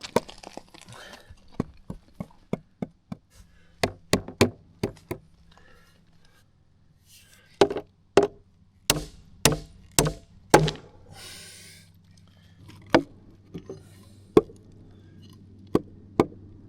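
Hammer driving nails into framing lumber: sharp separate wooden-sounding strikes, scattered at first, then a run of loud blows about two a second in the middle, and a few more near the end.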